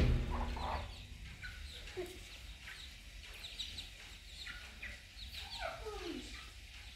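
Chickens clucking in short, scattered calls, with one longer call falling in pitch about five and a half seconds in.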